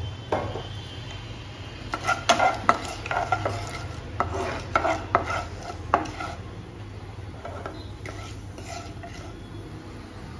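Wooden spatula stirring chana dal and urad dal in oil in a non-stick kadai: a run of scrapes and knocks against the pan, busiest from about two to six seconds in, then lighter.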